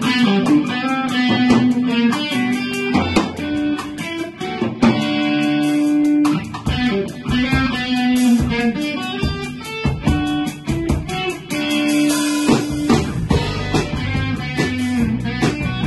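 Rock band playing live: electric guitars hold long lead notes over a bass line and a drum kit keeping a steady beat.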